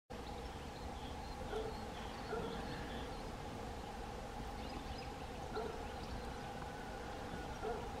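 Outdoor ambience with faint, short, high chirps of small birds over a steady hum, broken by four short louder sounds.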